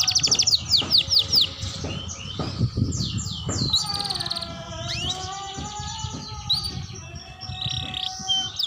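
Young domestic canary singing, a juvenile still learning its song. It opens with a quick run of repeated downward-sweeping notes, then shifts to a rambling mix of trills and twitters.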